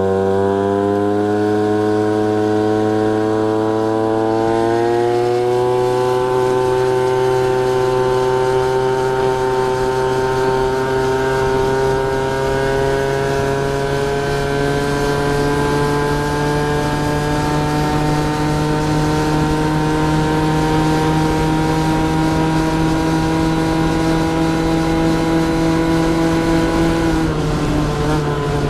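Peugeot Speedfight scooter's two-stroke engine with a 70cc big-bore kit, running under throttle as the scooter speeds up. The engine note climbs quickly over the first few seconds, then rises slowly and steadily, and dips briefly near the end.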